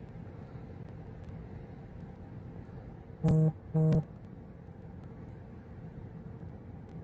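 Two short, loud, low buzzing tones about half a second apart, a little past three seconds in, over a steady low rumble.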